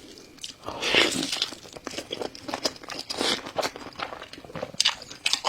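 Close-miked eating sounds: biting and crunching into crisp food, with irregular crackly crunches and chewing. The loudest crunch comes about a second in.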